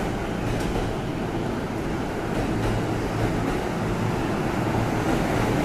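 JR East suburban electric train pulling out along the platform: a steady rumble of wheels and running gear that grows a little louder as the train gathers speed.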